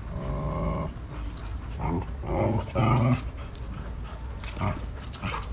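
Dogs play-fighting, growling at one another in several short bouts.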